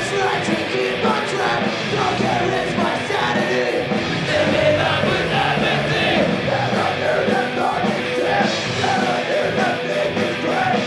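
Live punk rock band playing loud and without a break, with a singer's voice over the drums and guitars.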